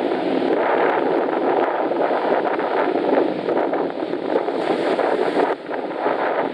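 Strong wind buffeting the microphone, a loud steady rush with gusty flutter that dips briefly about five and a half seconds in.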